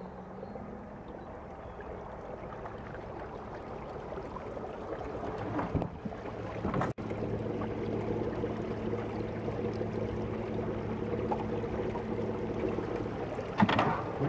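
Minn Kota 50-pound-thrust electric trolling motor running with a steady hum, with water washing past the canoe hull; the hum is stronger after a brief break about halfway. A sharp knock near the end.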